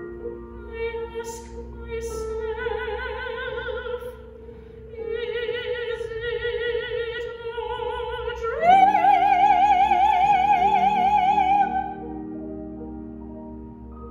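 A woman singing classically with wide vibrato over grand piano accompaniment. She holds two long notes, then rises to a louder, higher held note, after which the piano goes on alone.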